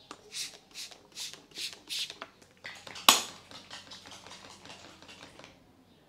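Barber's hands striking the head in a head massage: about six even pats in the first two seconds, roughly two and a half a second, then a single sharp crack about three seconds in, the loudest sound, followed by quicker, lighter tapping that stops shortly before the end.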